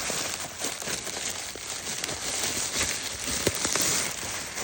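A 3-pound bag of beads and jewelry findings being dumped out onto a surface: plastic packaging crinkling with a dense run of small clicks and rattles from the pieces spilling out.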